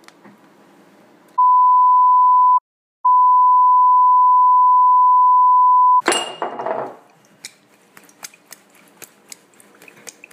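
A loud, pure electronic beep tone edited over the sound track, with dead silence behind it: about a second of tone, a brief gap of silence, then about three seconds more. It cuts off into a sudden loud noisy burst, followed by a run of light clicks and taps.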